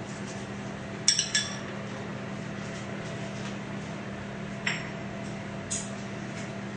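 Microwave oven running with a steady hum while cooking. A few sharp clinks sound over it: two close together about a second in, then two more later.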